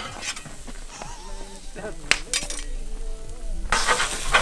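A person's voice with a wavering, bleat-like pitch, and a couple of sharp clinks a little past two seconds in.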